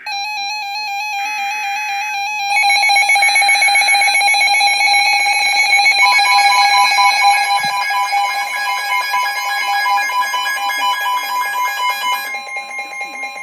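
Emergency Alert System broadcast opening with the digital header bursts, followed by a loud electronic alert tone. The alert tone pulses rapidly, wavers slightly and has many overtones. A second steady tone joins about halfway through.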